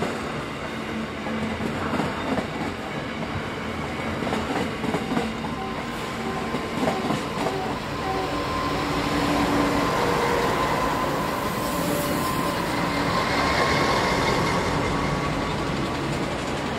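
Wheels of a container freight train clacking over the rail joints, then an NR class diesel-electric locomotive passing close by. The locomotive gets louder from about eight seconds in, with a thin, steady high whine.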